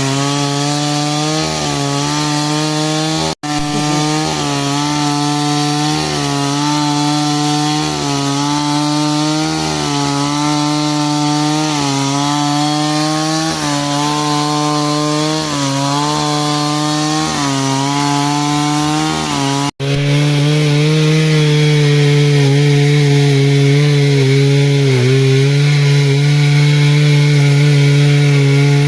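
Stihl MS 382 two-stroke chainsaw running at high revs while cutting wood. Its pitch sags and recovers every second or two as the chain bites. There are two momentary breaks in the sound, and after the second, about twenty seconds in, it runs steadier and louder.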